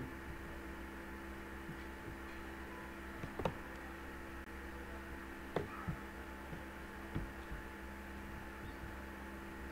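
Steady low electrical mains hum with faint background hiss, broken by a few faint clicks.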